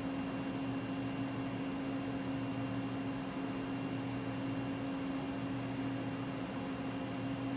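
Steady machine hum: a constant low drone with a thin high-pitched whine over a bed of hiss.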